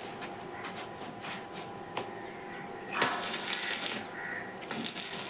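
Electric welding arc crackling in two short bursts of about a second each, the first about three seconds in and the second near the end, with scattered clicks and taps before them.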